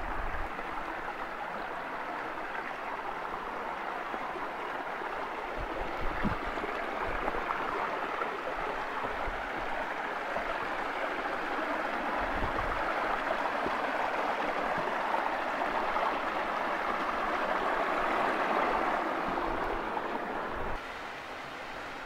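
Mountain stream running over small cascades between boulders: a steady rush of water, dropping a little in level near the end, with a couple of brief low thumps.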